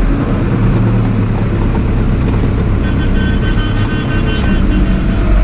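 Tractor engine running steadily with a low drone. Near the middle, a high thin whine sounds over it for about a second and a half.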